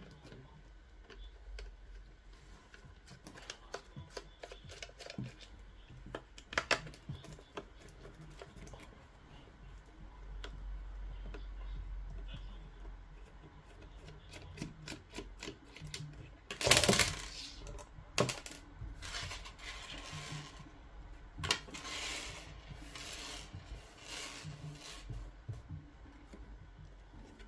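Light clicks and taps of small tools and parts being handled while a Bose SoundLink Color II speaker is taken apart. There is a louder clatter a little past halfway, then several short scraping bursts toward the end.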